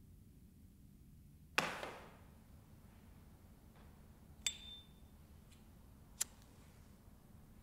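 Sparse handling sounds of a lighter while a smoke is lit in a quiet room. About a second and a half in there is a short scraping hiss, then a metallic ping with a brief ring near the middle, and a sharp click about six seconds in.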